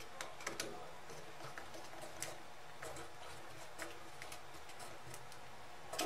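Faint, scattered small clicks and taps from a screwdriver and a wire being worked into the screw terminals of a plastic relay socket, coming at irregular intervals.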